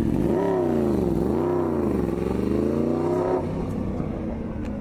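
A vehicle engine revving: its pitch rises and falls twice, then it fades out about three and a half seconds in.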